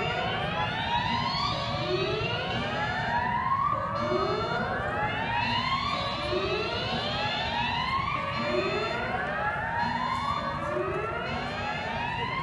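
A siren-like alert sound effect from the Gundam statue's night show, repeating a rising whoop about every second and a quarter, about ten times, over a low rumble.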